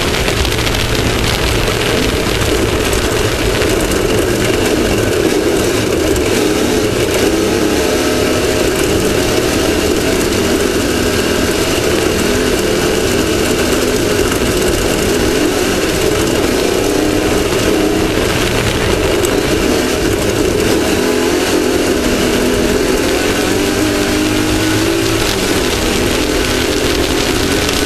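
Off-road race vehicle's engine running hard at speed, its pitch rising and falling with the throttle, under a steady rush of wind and rough-terrain rattle heard from the onboard camera.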